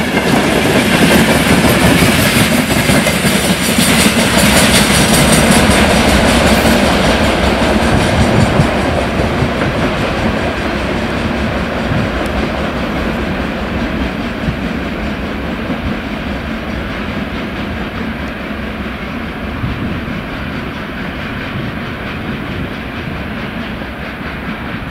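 Freight train's open gondola wagons rolling past close by, wheels running on the rails. The noise stays loud for the first eight or nine seconds, then fades steadily as the train draws away.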